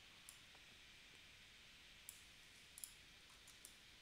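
Near silence: a faint steady hiss with a handful of light, sharp clicks from a computer mouse and keyboard.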